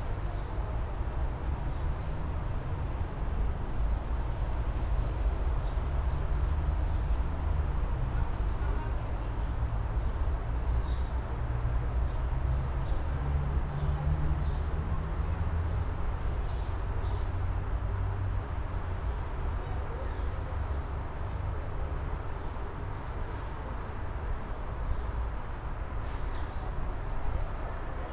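Steady low rumble of a tram standing at the platform amid city noise, easing a little past halfway. Over it runs a continual string of short high-pitched chirps.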